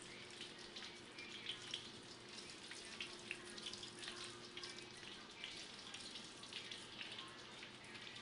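Chicken frying in hot oil: a faint, steady sizzle with scattered small pops and crackles.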